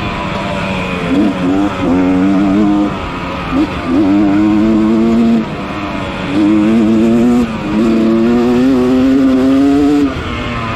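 Yamaha 250 dirt bike engine racing under hard throttle, held high for a second or two at a time and dropping off briefly between bursts about four times as the throttle is chopped and opened again.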